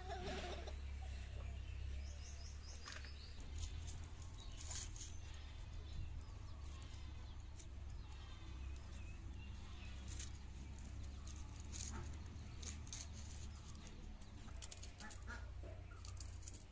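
Crisp, irregular cutting clicks as a bottle gourd is sliced on a boti's curved blade, with birds chirping in the background over a steady low hum.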